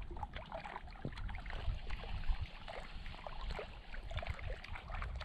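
Small waves lapping and splashing against the rocky lake shore, with a low wind rumble on the microphone.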